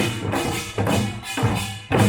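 Korean pungmul folk percussion band playing: drums beaten in a fast, driving rhythm, several strokes a second, with ringing metal gongs sounding over the beat.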